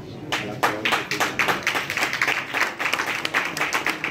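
A small group of people clapping their hands in quick, uneven claps, starting a moment in.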